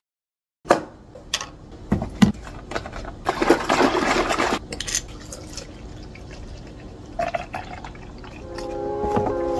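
A few knocks as a carton of oat milk is handled on a table, then the carton shaken hard for about a second, then oat milk poured from the carton into a large plastic tumbler. Background music comes in near the end.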